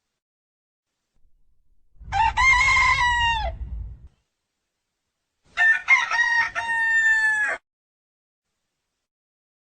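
A rooster crowing twice, each crow about two seconds long and dropping in pitch at the end. A low rumble runs under the first crow.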